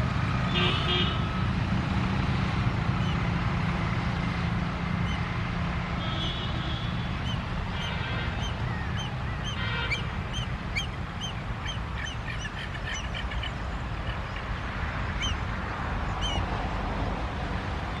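Indian grey hornbills calling in short bursts, with a run of quick, high, repeated chirps through the middle, over a steady low rumble.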